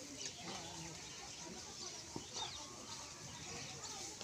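Chickens clucking, a scatter of short calls over the farmyard background.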